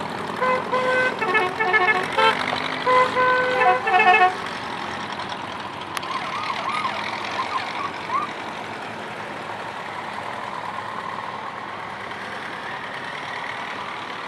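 Vehicle horns tooting a quick series of short blasts at several stepped pitches, like a multi-tone musical horn, for about the first four seconds, then steady engine noise from idling vehicles.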